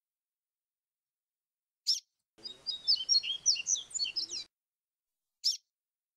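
Yellow-bellied seedeater (papa-capim) singing one rapid, high twittering phrase of about two seconds in the 'coleiro grego flautado' song style. A single sharp call comes a little before the phrase and another near the end.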